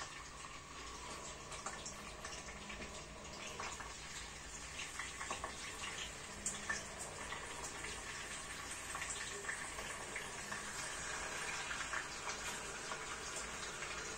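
Meat and onion frying in a pan: a steady sizzle with scattered crackles.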